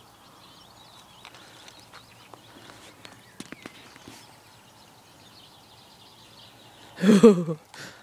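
Quiet outdoor background with a few light clicks, then a short, loud vocal exclamation about seven seconds in, followed by a sharp click.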